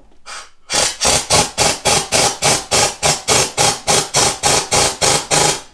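Impact wrench driving the bolts of a new fan hub, hammering in even pulses about four a second.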